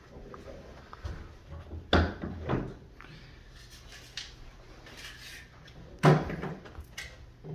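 Knocks or clunks: two about half a second apart around two seconds in, and a third about six seconds in.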